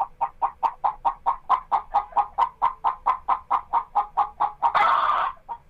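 Domestic hen clucking in a rapid, even series of short clucks, about five a second, then a louder drawn-out squawk about five seconds in, followed by a few faint clucks.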